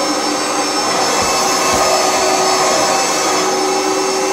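Oreck Halo upright vacuum cleaner running steadily on high with its brush roll switched off: an even rush of air under a steady high-pitched motor whine. A couple of soft bumps a little over a second in.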